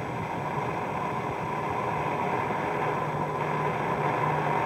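Hiss and static from an off-air weather radio recording, with a steady tone running through it, growing gradually louder.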